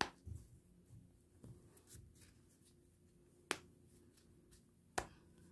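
A clear plastic glitter heart piece being pressed into the chest of a plush toy, with quiet handling scuffs and small ticks and two sharp plastic clicks, one about halfway through and one near the end, as it is fastened in.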